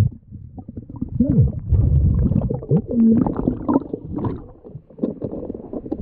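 Underwater sound of a scuba diver: low rumbling gurgle of exhaled bubbles from the regulator, coming in surges, with a few short muffled tones that rise and fall in pitch about a second and three seconds in.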